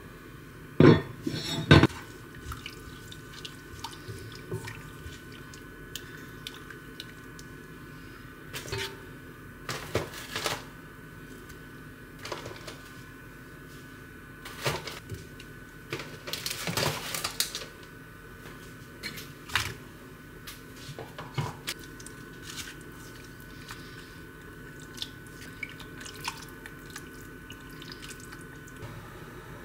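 Cookware clatter around a Staub enamelled cast-iron pot: two loud clanks about a second in as its heavy lid is set down, then scattered knocks and scrapes as meat is laid in and stirred with tongs. A faint steady hum runs underneath.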